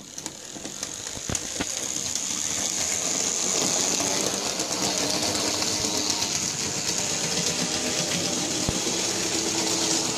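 Bachmann EMD F7A model locomotive's electric motor running with a high whine, growing louder over the first few seconds as the train gets under way and then holding steady. Scattered light clicks come from the wheels on the model track.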